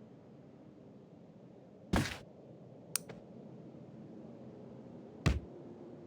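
Three short, sharp clicks over a faint low hum: a loud one about two seconds in, a faint one a second later, and another loud one just after five seconds in.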